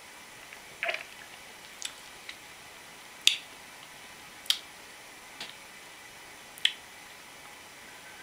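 A swallow of soda, then about half a dozen sharp wet mouth clicks and lip smacks, roughly one a second, as the cola is tasted.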